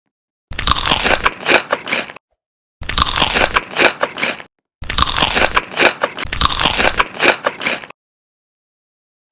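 Crunchy food being bitten and chewed, a run of crisp crunches in three separate stretches that start and stop abruptly, with dead silence between them.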